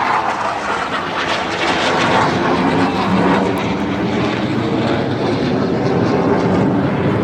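Airplane engines droning steadily as an aircraft flies in an air show display.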